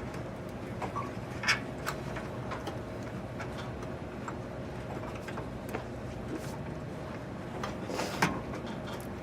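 A few light clicks and small knocks over a steady room hum, the clearest about a second and a half in and again near the end: computer parts and cable connectors being handled and pushed into place.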